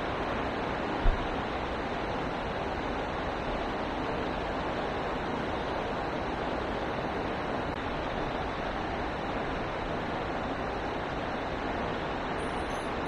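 Steady rushing of a fast-flowing, flooded river. A brief low thump comes about a second in.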